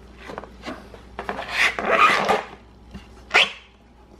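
Tape being peeled off the painted wood of a toy kitchen in several rasping pulls, the longest lasting about a second midway.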